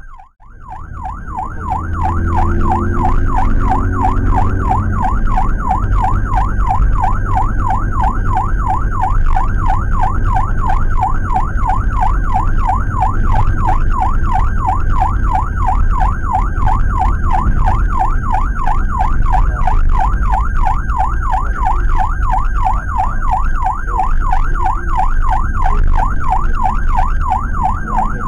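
Electronic emergency siren in a quick up-and-down yelp, about three sweeps a second, heard from inside a moving Suzuki APV ambulance over low engine and road rumble. The sound drops out for a moment right at the start, then comes straight back.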